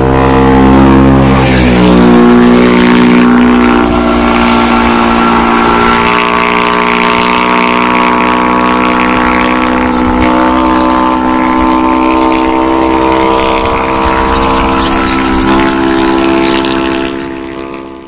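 An engine running at a steady speed. Its pitch rises over the first two seconds, then holds, and the sound fades away near the end.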